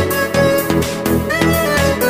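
Background music with a steady beat of about two beats a second and a melody.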